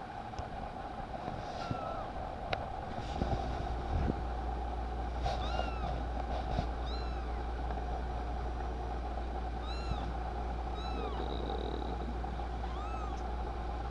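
Two-week-old kitten mewing: about six short, high, thin mews, each rising and falling in pitch, spaced a few seconds apart.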